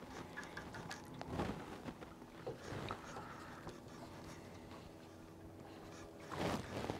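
Faint scratchy winding and small clicks of a spinning reel as a soft plastic is retrieved. A faint steady hum comes in about two and a half seconds in and fades near the end.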